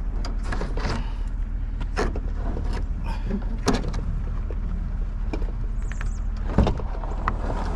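Several knocks and scrapes as a white sheet-metal appliance cabinet is shoved against the edges of a car's hatch opening, the loudest knock near the end, over a steady low rumble.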